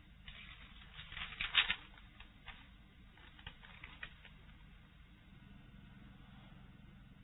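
A quick run of light clicks and taps in the first two seconds, then a few scattered ones, over a faint low hum.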